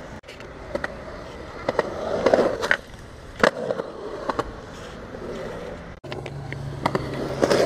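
Skateboard wheels rolling over a concrete skatepark surface, with several sharp clacks of the board, the loudest about three and a half seconds in, and a low steady hum from the wheels near the end.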